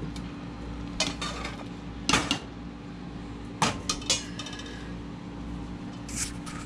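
Dishes and utensils clinking and clattering a few times at irregular intervals, over a steady low hum.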